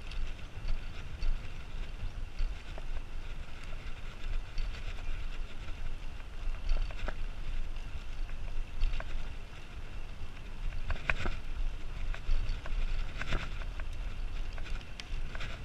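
Road bicycle rolling along a concrete trail: steady low wind rumble and tyre noise, broken by a few short sharp rattles or clicks, the loudest about eleven and thirteen seconds in.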